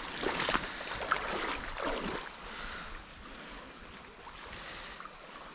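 Shallow river water running over stones, louder and more broken for about the first two seconds, then a steady, quieter wash.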